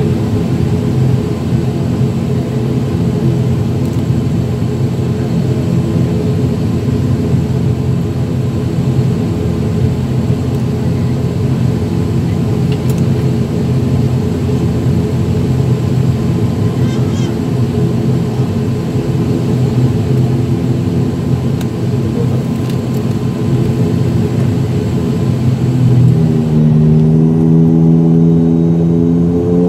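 ATR 72-600's turboprop engine and propeller heard from inside the cabin, running with a steady hum of several tones. About 26 seconds in, the pitch rises and it gets a little louder as the engines power up for the take-off run.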